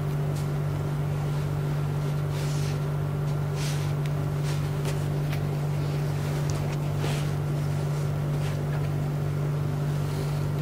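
A steady low machine hum with a regular pulse underneath, and a few brief soft rustles as the fabric dress on the mannequin is handled.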